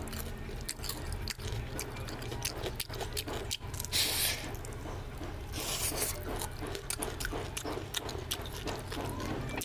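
Close-miked eating by mouth and hand: wet lip smacks and mouth clicks while chewing fried fish and curry, with two brief hissy sucking sounds near the middle. A low steady hum runs underneath.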